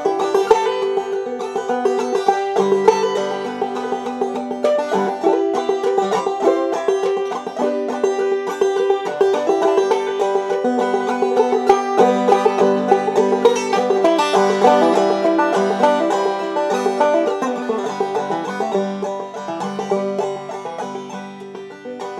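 Clawhammer banjo playing an instrumental break: quick picked notes over a ringing drone string, easing off in level over the last few seconds.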